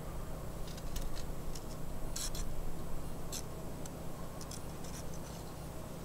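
Quiet outdoor ambience with a steady low rumble, overlaid by a faint steady high-pitched electronic whine and scattered short, high electronic chirps and beeps picked up in the recording.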